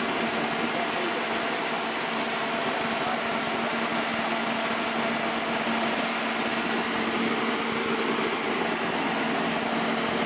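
Steady drone of a marine travel lift's engine and hydraulics running as it lowers a boat in its slings into the water, a constant hum with a hiss above it.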